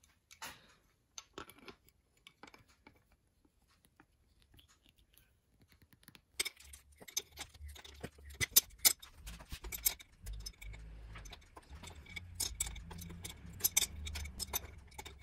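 Metal clicks and clinks of an adjustable wrench being fitted and set against the top cap of a RockShox Duke-C suspension fork leg: a few faint clicks at first, then rapid, irregular clinking from about six seconds in.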